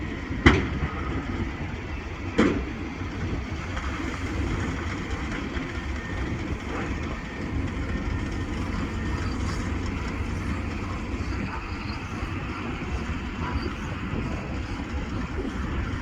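New Holland T7.185 tractor and baler running steadily, with two sharp metallic clanks from the machinery about two seconds apart near the start.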